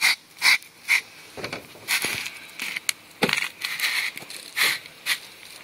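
Tannerite pellets and powder rattling inside a plastic mixing container as it is shaken by hand, in sharp bursts about twice a second, less even near the end.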